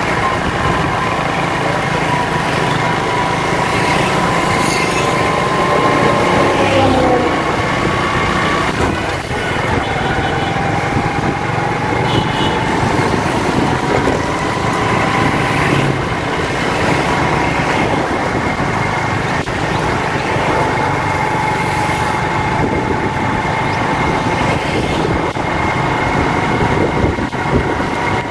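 Road traffic: a steady mix of vehicle engines and tyre noise, with a faint engine whine that slides down in pitch about six seconds in.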